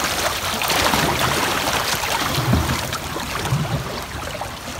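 Swift, high floodwater of a swamp river rushing and splashing around a kayak, a steady rushing noise with a few low soft bumps.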